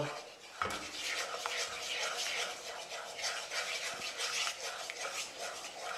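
Wooden spoon stirring and scraping around a nonstick saucepan of butter, sugar and water, a gritty rhythmic rasp as the sugar is worked until it dissolves.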